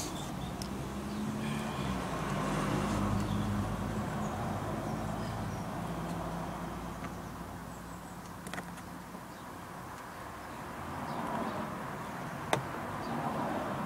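Engine hum of a passing motor vehicle, swelling to its loudest a few seconds in, fading, then rising again near the end. Two sharp clicks, the second louder, one just past halfway and one near the end.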